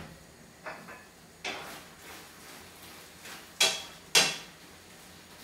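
Kitchen handling clatter: a few sharp clicks and knocks, the two loudest about half a second apart a little after the middle.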